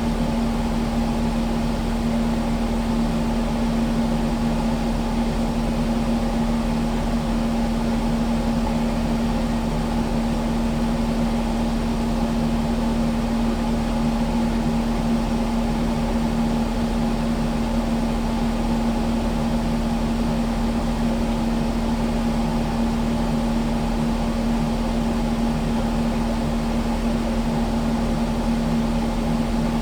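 Kubota skid steer's diesel engine idling steadily, an even drone with a constant hum.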